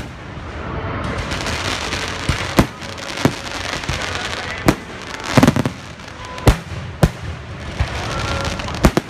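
Fireworks going off: a steady crackling hiss of sparks, broken by sharp bangs every second or so, about seven in all, with a quick cluster in the middle.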